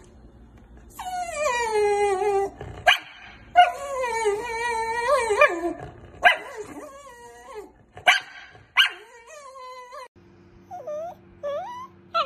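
Australian Shepherd whining and howling in long drawn-out calls that bend and fall in pitch, with several short sharp barks between them, begging at its empty bowl. Near the end a small Yorkshire Terrier gives a few short high whines over a steady hum.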